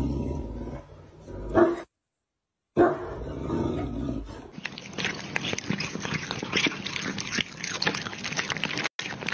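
A Great Dane makes a low-pitched vocal sound. After a short silent gap, a cat laps milk from a small hand-held cup, giving quick, irregular wet licking clicks through the second half.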